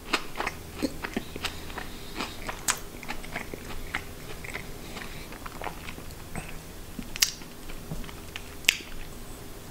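A person chewing battered, deep-fried seafood with the mouth closed, with small crunches and wet clicks scattered irregularly throughout.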